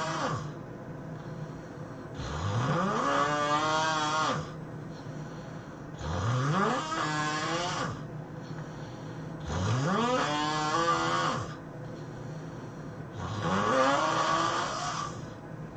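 A person snoring hard: four long snores, about one every three and a half to four seconds. Each starts low, rises steeply in pitch and then holds a steady tone, with quieter breathing between.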